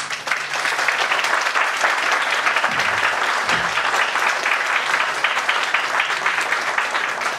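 Audience applauding: many hands clapping in a dense, steady patter that swells up within the first second.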